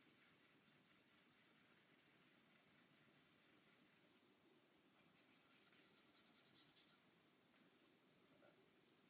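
Faint, steady rubbing of wet sandpaper worked back and forth over the water-based lacquer finish of a guitar body, with a few slightly louder scratchy strokes in the middle.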